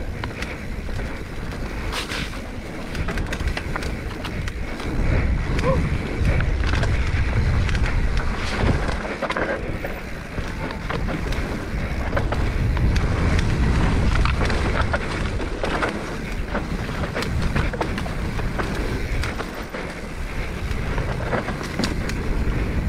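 Full-suspension mountain bike (2021 Giant Trance X 29) descending a dirt trail: wind rushing over the microphone, rumbling tyre noise and frequent clicks and rattles from the chain and frame over rough ground. It gets louder about five seconds in and eases near the end.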